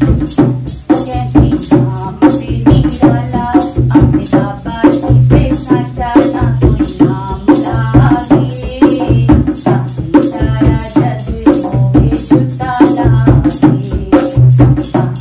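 Hindi devotional bhajan: a voice singing over a steady, rhythmic percussion beat.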